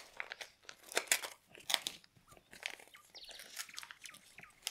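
Paper baking mould crinkling and tearing as it is peeled off a small kulich, in irregular crackles and snaps.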